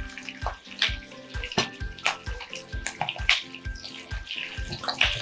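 Pork belly, dried chilies and garlic shoots sizzling in oil in a frying pan as chili bean sauce goes in and tongs toss them, over background music with a steady beat.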